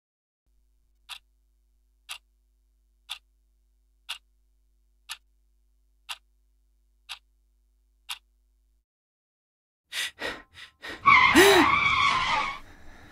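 Clock ticking sound effect, eight ticks once a second, then a pause. Near the end, a few quick clicks lead into a loud, brief sound-effect burst with a rising-then-falling tone.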